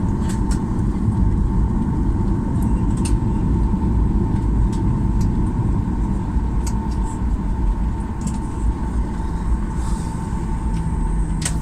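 Steady low rumble of a Boeing 737-800's CFM56 engines and air conditioning heard inside the passenger cabin, with a thin steady whine over it and a few faint light clicks and rattles.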